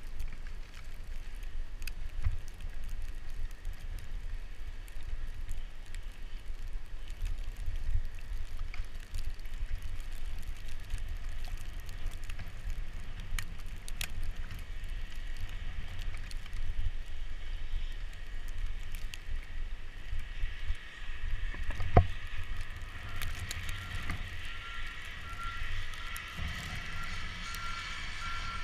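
Bicycle ridden over a snowy road: a steady low rumble of wind on the microphone with tyre noise and rattling clicks over bumps, and one loud knock about two-thirds of the way through. Near the end a vehicle's reversing alarm beeps steadily and repeatedly.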